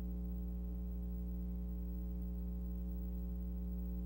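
Steady low electrical hum with a stack of even overtones, unchanging throughout, typical of mains hum on an old film soundtrack; no other sound is heard.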